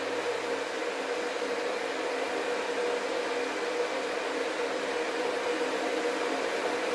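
Electric kettle heating water: a steady hiss with a humming tone, slowly growing louder.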